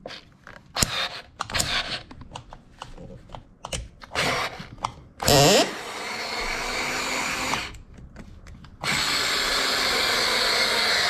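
Alloyman 4-volt cordless electric screwdriver driving a screw into a wooden board. Its motor runs in two steady spells, the first about five seconds in and a louder one from about nine seconds, after scattered clicks of the tool and screw being set. It loses power under the load of the screw.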